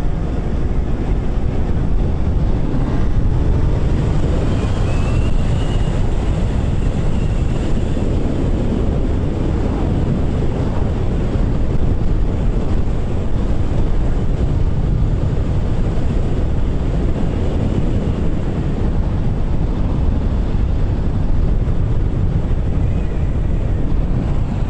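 Steady wind rush on the microphone of a moving motorcycle, with the motorcycle's engine and road noise underneath.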